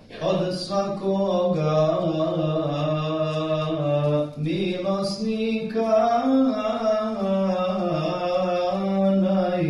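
A male imam chanting solo in Islamic religious recitation: a slow, melismatic melody with long held notes that glide between pitches, broken by short breaths near the start and again about four and a half seconds in.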